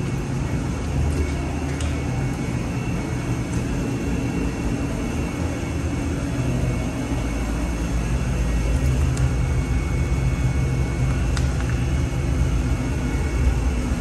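Steady low mechanical rumble with a thin, constant high whine, and a few faint clicks.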